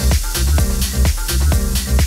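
Background electronic dance music with a steady, heavy bass beat and crisp percussion repeating evenly.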